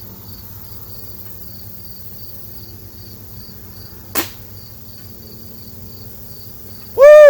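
Crickets chirping steadily, about three chirps a second. About four seconds in comes one sharp crack of a .22 Umarex Gauntlet PCP air rifle firing. Near the end there is a loud shout, rising then falling in pitch.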